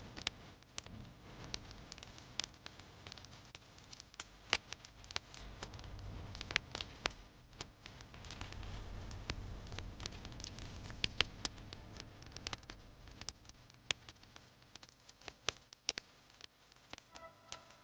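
Wood fire crackling in a fireplace: irregular sharp pops and snaps, several a second in places, over a low, uneven rumble of the burning flames.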